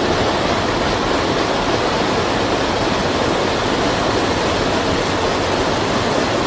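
Steady, loud rushing of fast-flowing floodwater.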